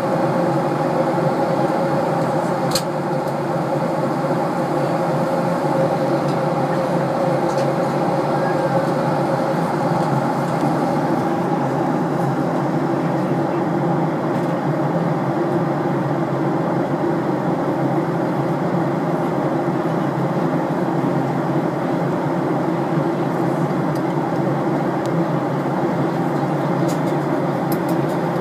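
Steady drone of an airliner's cabin in level flight: engine and airflow noise with a few low steady hum tones, unchanging throughout.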